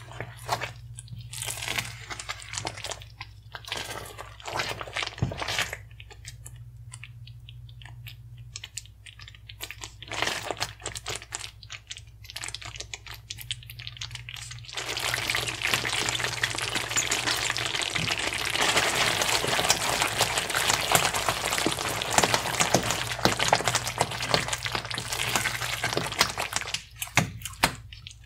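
Thick, creamy alfredo sauce being stirred in a pan with a spatula: separate wet, squelching strokes at first, then about halfway through a louder, denser run of wet crackling and squishing that breaks off shortly before the end.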